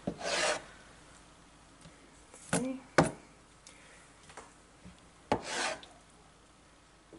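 Chef's knife blade scraping across a plastic cutting board, working seeds and membranes off roasted pepper flesh. There are three separate short scrapes, with a sharp knock about three seconds in.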